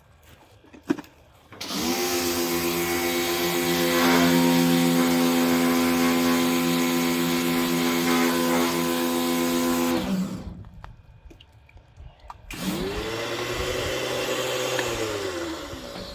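Small electric pressure washer (SCA, 1450 psi) running with water spraying, twice: a run of about eight seconds, then a shorter one of about three seconds. Each time the motor and pump whine up to speed and wind down as they stop. The washer is being run to draw the pressure out of the system. A sharp click comes about a second in.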